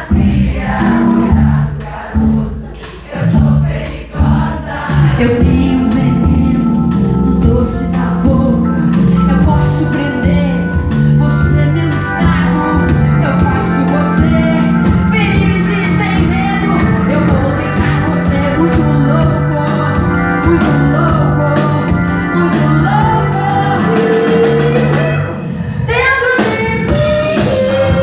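Live band music: a drum kit keeping a steady beat under held guitar chords, with a woman singing over it, her voice most prominent near the end.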